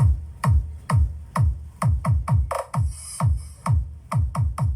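Electronic DJ dance remix with a heavy, booming kick drum about twice a second, each kick a thump that drops in pitch, with quicker runs of kicks about two seconds in and near the end. It is played through a sound system as a sound check of the highs, mids and lows.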